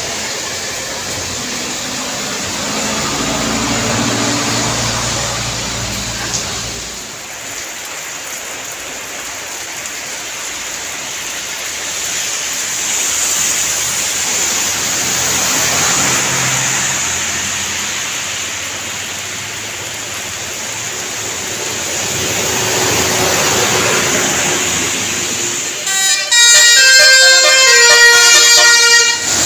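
Traffic passing on a rain-wet road, tyre hiss and engines swelling and fading as vehicles go by. Near the end a bus's Basuri telolet horn plays a quick melody of several stepping tones, loud and clear over the traffic.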